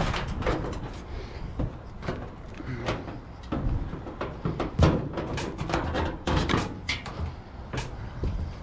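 Scrap metal being handled and knocked about: a run of irregular clanks, knocks and rattles, the loudest about five seconds in.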